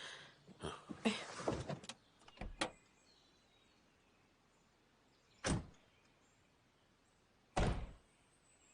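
Some brief shuffling and clunks, then two car doors shutting about two seconds apart.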